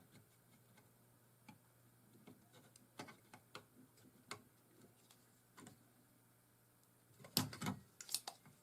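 Faint, scattered clicks and taps of small tools handled on a workbench, with a few sharper clicks near the end.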